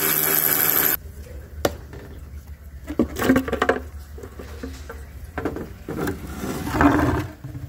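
Cordless ratchet running steadily for about the first second as it spins off a valve body cover fastener on a Ford 8F35 transmission, then stopping. After it come scattered knocks and clatter as the ribbed plastic valve body cover is lifted off and handled.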